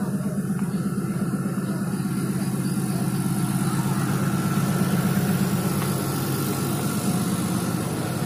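Steady low drone of the KM Lawit passenger ship's engines, heard from the open deck, with an even hiss above it.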